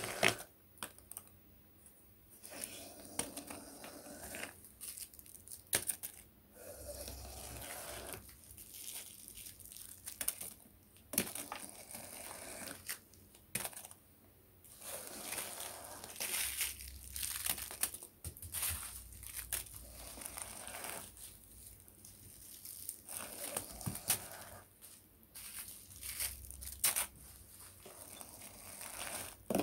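Small plastic rubbish bags crinkling and rustling as they are loaded and packed into the hopper of a model rubbish truck. Irregular rustles come with scattered sharp clicks and knocks.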